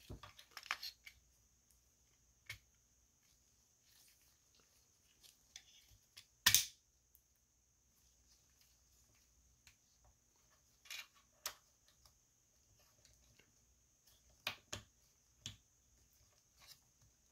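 Scattered small plastic clicks and snaps from a Transformers Studio Series 86 Ratchet action figure's joints and panels as gloved hands work them through transformation. There is a quick cluster of clicks in the first second, and the loudest, slightly longer snap comes about six and a half seconds in.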